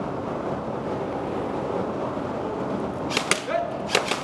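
Airsoft guns firing: a few sharp snaps in two quick clusters, about three seconds in and again near the end, over a steady background hiss.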